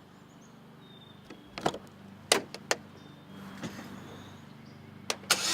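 Car door handling: a series of sharp clicks and knocks, then a louder, noisier thud near the end as the door is shut.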